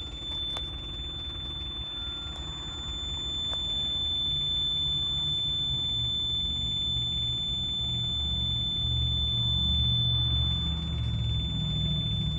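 Carrier Transicold truck refrigeration unit (reefer) starting up: a low mechanical rumble builds about four seconds in and grows louder toward the end. A steady high-pitched tone sounds over it throughout.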